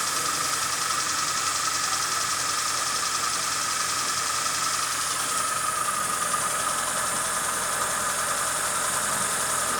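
Fiat Palio G1 engine idling steadily, with its broken sump guard removed and the tinny sheet-metal rattle gone.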